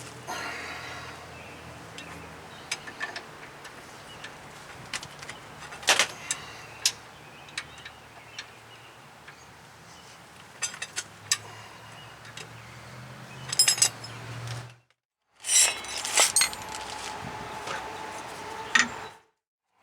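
Scattered metallic clinks, taps and knocks of hand work on a disc brake assembly, as the pads and caliper are fitted back into place. The sound cuts out completely twice for a moment.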